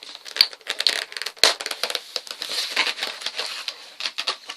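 Toy packaging handled by hand, crinkling and crackling with irregular sharp clicks.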